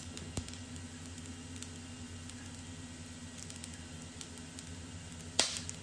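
Rice frying faintly in a nonstick pan: a low, steady sizzle over a constant low hum. A short click comes about half a second in, and a brief louder burst of noise comes near the end.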